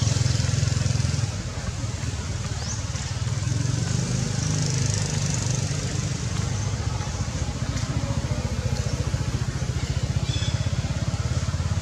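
Steady low rumble of a small engine running, with a rapid even pulse.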